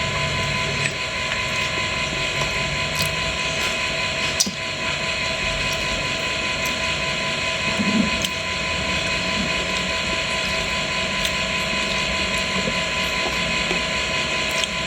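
A steady mechanical hum from a small running motor, with several light clicks and knocks scattered over it.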